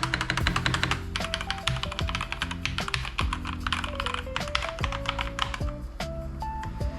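Rapid typing on a Logitech G Pro X TKL mechanical keyboard with brown switches, a quick run of many clicky keystrokes, over background music with sustained notes.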